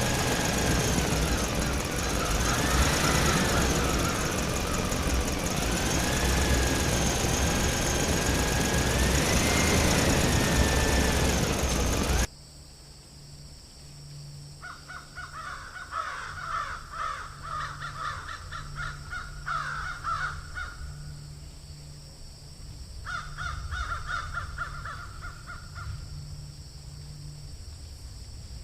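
The motor of a miniature diesel well-drilling machine running, its pitch rising and falling; it cuts off abruptly about twelve seconds in. After that, crows call in repeated bursts of cawing.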